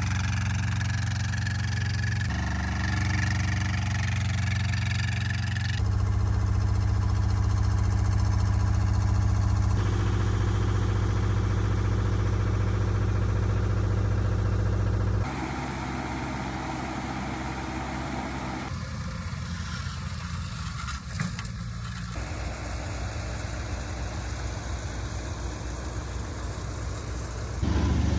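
Engines of asphalt paving machinery running steadily at a low hum, changing abruptly every few seconds from one machine or clip to another.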